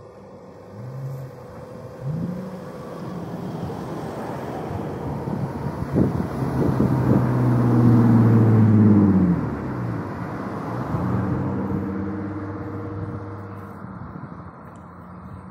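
Beef cattle mooing: a couple of short low calls, then a long loud bellow in the middle and another long call after it.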